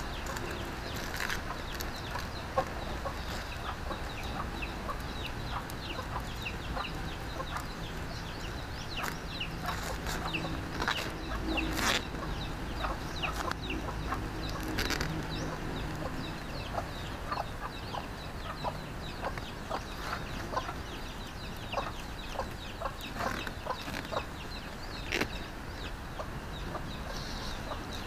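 Chickens clucking on and off, mixed with the crackle and rustle of coconut-leaf strips being woven by hand.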